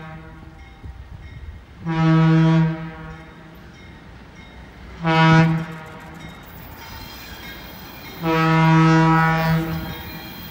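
Alco RS-32 diesel locomotive's air horn blowing a long blast, a short blast and a long blast, the close of a long-long-short-long grade-crossing signal. Faint running noise of the approaching train rises underneath near the end.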